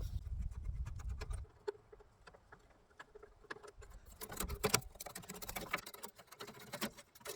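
Scattered light clicks, taps and small rattles of car parts and hand tools being handled, with a low rumble in the first second and a half.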